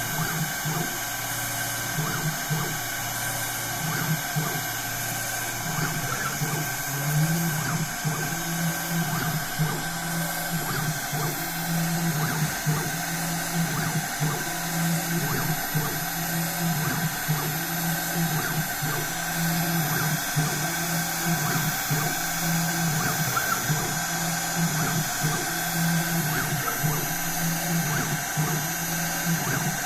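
Small CNC router machining a printed circuit board: the spindle runs with a steady high whine, and the stepper-driven axes hum in short moves that start and stop over and over.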